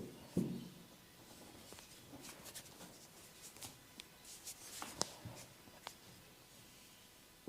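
Massage sounds: hands rubbing and patting on skin and cloth, with a dull thump about half a second in and scattered light rustles and small sharp clicks after it.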